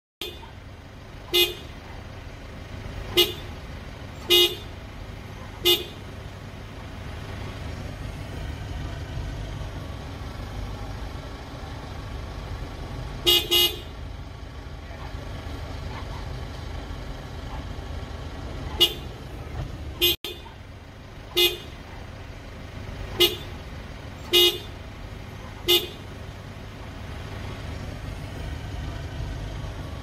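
Car horn sounding in short, irregular beeps as a pug standing on the driver's seat presses the steering-wheel horn pad with its paws. About a dozen brief toots, one quick double beep near the middle, over a steady low rumble.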